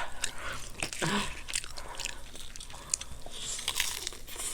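Close-up crunching and chewing of crispy fried chicken: a string of sharp, irregular crunches as it is bitten and chewed.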